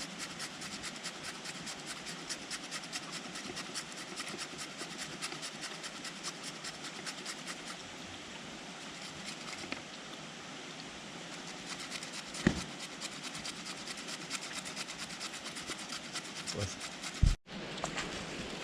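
Carrot being ground by hand into small pieces: quick, rhythmic rasping strokes, about four to five a second. A sharp knock comes about twelve seconds in and a louder thump near the end.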